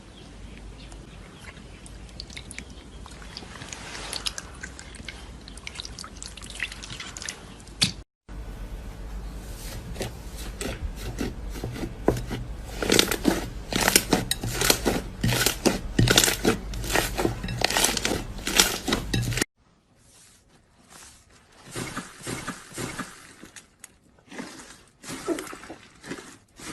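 Crunchy slime being squeezed and pressed by hand, giving dense crackling and popping with wet squelches. It comes in three separate clips, the middle one the loudest and busiest.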